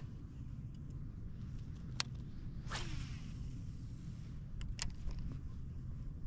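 A fishing cast: a swish and the reel's line paying out in a whirr that falls quickly in pitch, with sharp clicks of the tackle before and after, over a steady low rumble of wind.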